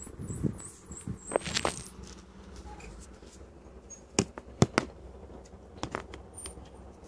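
Small hard objects clicking and tapping as they are handled: several sharp clicks in small clusters, a pair, then three close together, then two more, over a low steady hum.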